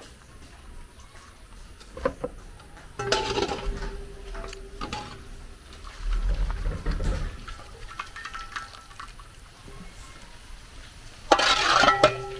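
Hot water splashing as an aluminium colander of tomatoes is dunked into a large pot and lifted out, the water pouring back through its holes. There are a few light knocks about two seconds in, a splash about three seconds in, a low rumble around six seconds, and the loudest splash near the end.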